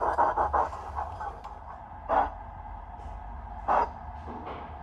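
Steam-locomotive sound from the Zimo MS sound decoder in an O gauge Hudswell Clarke industrial tank engine model, playing through its small onboard speaker. A fast flutter of exhaust beats dies away in the first half-second. Then come two strong single chuffs about a second and a half apart, the slow beat of the engine moving off at walking pace, over a steady low hum.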